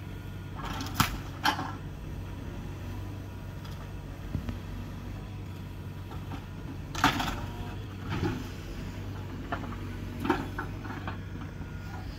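Mini excavator engine running steadily, with scattered clatters and bangs of demolition debris being dropped into a dumpster. The sharpest bangs come about a second in and about seven seconds in.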